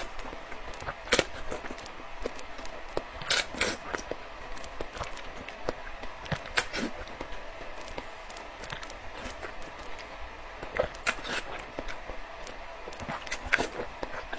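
A person biting into and chewing a crisp raw green fruit close to the microphone: sharp crunches about a second in, around three and a half seconds, near seven and near eleven seconds, and again near the end, with quieter wet chewing in between.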